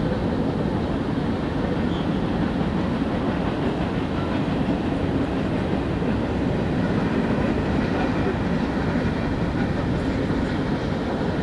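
Freight train passing, its cars rolling on the track in a steady low noise with no breaks.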